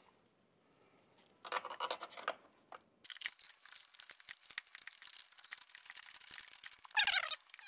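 Scratchy rustling and scraping of plastic parts being handled and fitted, dense and crackly from about three seconds in, as the back of a TOTO Neorest RH seat top is worked onto its bowl.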